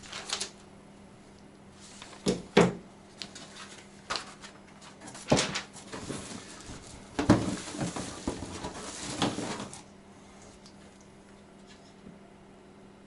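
Parts and packaging of a window fan being handled and unpacked: a series of knocks and clatters with rustling, the sharpest a little after two seconds, near five seconds and around seven seconds, dying away about ten seconds in.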